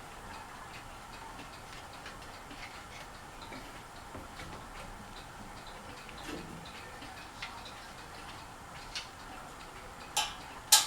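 Fasco Charleston ceiling fan running steadily, with faint ticks scattered through the hum and two sharper clicks near the end.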